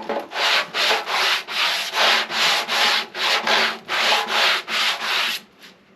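Hand sanding of cured Bondo body filler on a 1983 Yamaha Virago 750 gas tank with sandpaper: quick back-and-forth rasping strokes, about three a second, that stop just before the end. The sanding is knocking down the high spots of filler over a large dent.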